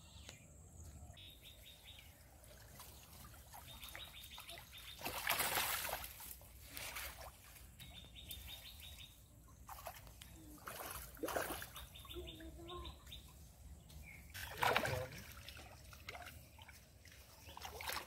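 Pond water splashing and sloshing as a fishing net is dragged and lifted through it, in several separate swishes about five and fifteen seconds in and a few times between. Short runs of a rapid, high ticking call sound in the pauses.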